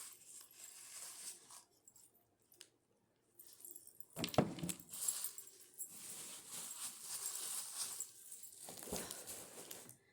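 Rustling and handling of wrapping paper and wrapped ornaments, with light clinks and a sharp knock about four seconds in.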